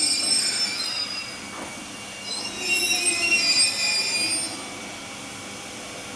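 A 651 series limited express electric train squealing shrilly from its wheels and brakes as it comes to a halt at the platform. The squeal comes in two spells, the second louder, and dies out about four and a half seconds in, leaving a steady low hum.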